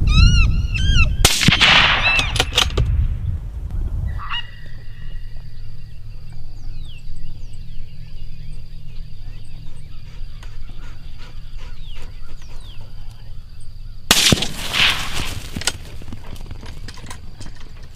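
A quick series of short pitched calls, then a hunting rifle shot about a second and a half in, ringing out briefly. After a cut, a steady high tone with faint chirps, then a second rifle shot about fourteen seconds in.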